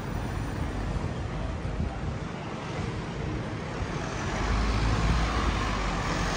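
Street traffic noise, with a vehicle passing close and a low rumble swelling about four seconds in.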